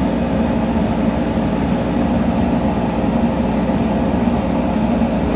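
A machine running steadily in a woodworking shop: a loud, even low drone with a faint steady hum, unchanging throughout.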